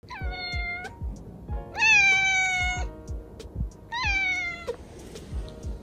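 Kitten meowing three times, high-pitched calls a second or so apart, the middle one the longest and loudest.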